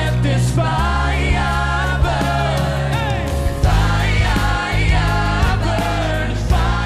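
Live pop ballad played by a band with bass and drums, with a lead male singer and a backing choir singing over it.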